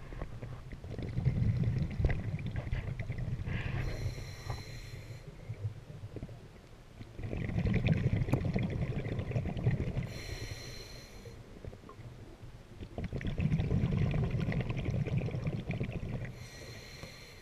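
Scuba diver's regulator breathing cycle heard underwater: a long, low bubbling rumble of exhaled air, then a short hissing inhale through the demand valve, three breaths about six seconds apart.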